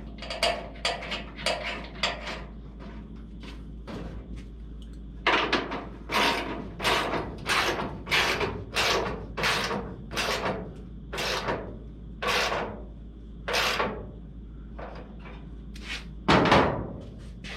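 Hand ratchet wrench running a fender bolt down, with a regular series of ratcheting strokes about one and a half a second from about five seconds in. A few lighter strokes come at the start, and there is a heavier clunk near the end.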